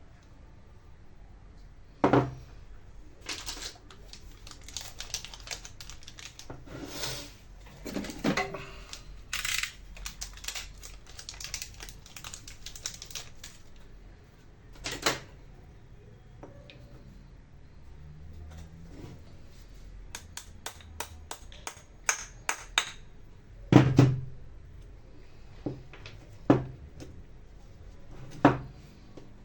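Clicks, clatter and knocks of small tools and angle-grinder parts being handled on a workbench. There is a busy stretch of rattling clicks early on and several sharper single knocks later.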